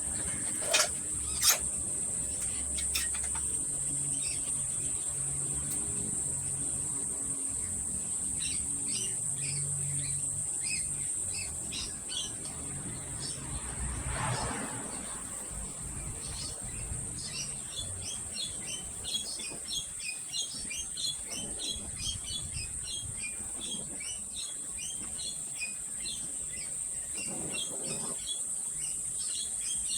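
Small birds chirping in quick runs of short high notes, sparse at first and busy through the second half, over a steady high-pitched drone. A brief rushing sound comes about halfway through.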